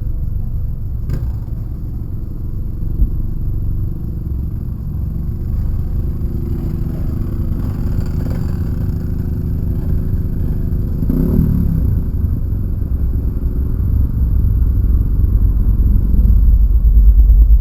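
An off-road vehicle's engine running with a steady low rumble, with a brief swell about eleven seconds in and growing louder near the end.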